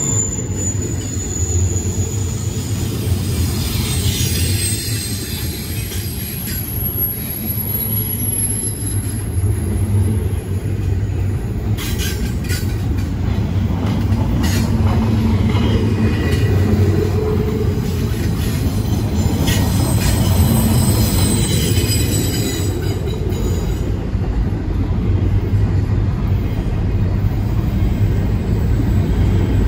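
Train rolling past: a steady low rumble of wheels on rail, with thin high-pitched wheel squeals coming and going.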